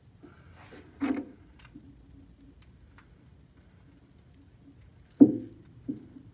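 Small carburetor parts being handled on a workbench: a few scattered clicks and light ticks, with a clink about a second in and a louder knock about five seconds in.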